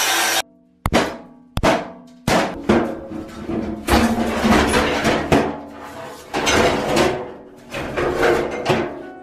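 An angle grinder cutting through a cast-iron bathtub stops abruptly about half a second in. Then come irregular heavy metallic knocks and clangs that ring briefly, about a dozen over the next eight seconds, as the cut halves of the tub are moved.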